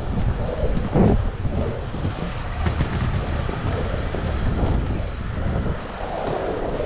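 Wind buffeting the camera microphone over a steady low rumble of skate wheels rolling on asphalt. There is a louder knock about a second in and a few short clicks.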